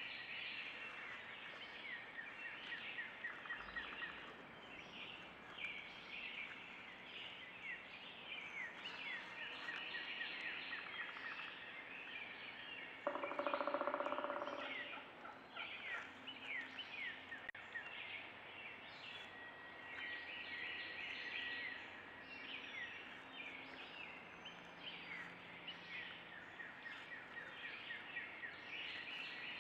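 A wild turkey tom gobbles once, a loud rattling call of about two seconds, roughly halfway through, over a steady chorus of songbirds chirping.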